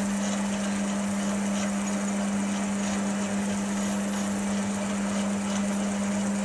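Chester DB10 metal lathe running steadily with a spinning chuck, giving a constant hum over a broad mechanical hiss while a brass bar is turned down.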